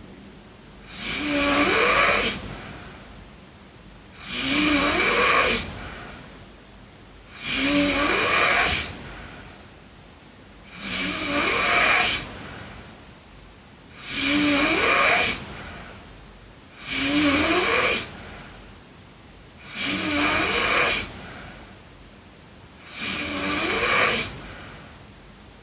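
A sleeping girl snoring steadily: eight snores about three seconds apart, each lasting about a second with a rising pitch, and quieter breathing between them.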